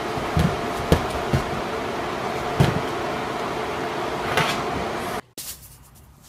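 A kitten pouncing and landing on a soft sofa, giving several dull thumps over a steady room hum. Near the end the sound cuts away to a much quieter background.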